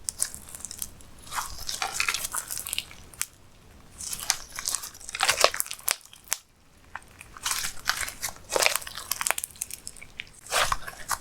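Slime being squeezed and kneaded by hand, giving irregular sticky clicks, pops and crackles in clusters, with a brief lull about halfway through.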